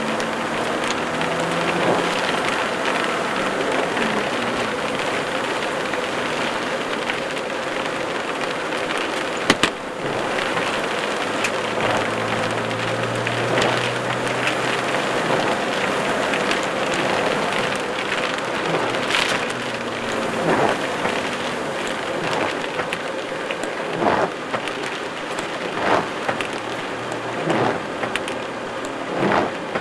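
Steady rain falling, with individual drips and splashes standing out more often toward the end. A single sharp click about ten seconds in is the loudest moment.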